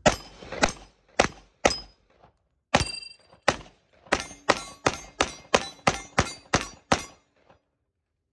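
FN FNX-45 Tactical .45 ACP pistol firing a full magazine of 230-grain FMJ, about fifteen shots. The first few come at an uneven pace, then the shots follow at about three a second. The pistol cycles every round without a jam.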